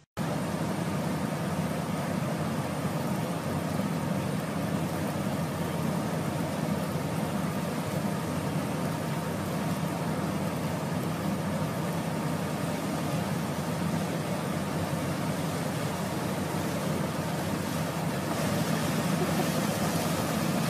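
A heavy engine running steadily under the rush of a large jet of water gushing from a truck-mounted rig's discharge pipe onto the ground, growing a little louder near the end.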